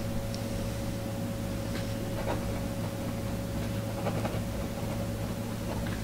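Steady low background hum with a faint steady higher tone, broken only by a few faint light clicks, about two and four seconds in.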